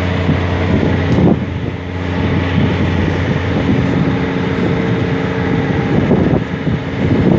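Strong sandstorm wind buffeting the microphone in gusts, with a steady engine hum running underneath.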